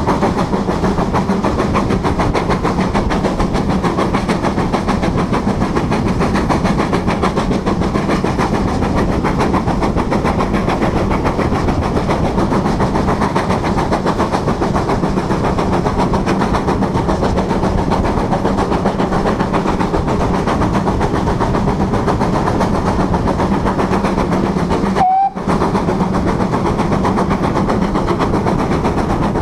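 Steam locomotive running along the line, heard from a camera on its boiler: a loud, steady rush of running noise and wind on the microphone. The sound drops out for a moment near the end.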